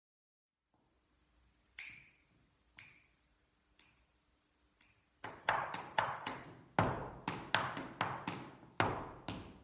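Four light ringing ticks about a second apart, then the hard soles of dance shoes beating out a fast sean nós step in reel time on a hard floor, a quick run of sharp taps and stamps.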